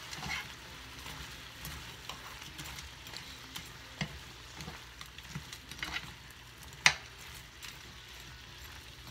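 Shell-on shrimp sizzling in a frying pan with soy sauce and garlic as they are stirred, a steady hiss with a few sharp clacks of the stirring against the pan, the loudest about seven seconds in.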